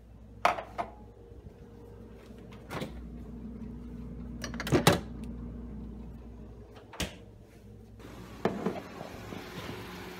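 Knocks and clinks of kitchen handling as a stemless glass and a screw-capped bottle are taken out and set down: about six separate sharp sounds, the loudest a double knock near the middle, over a low steady hum. A soft hiss comes in near the end.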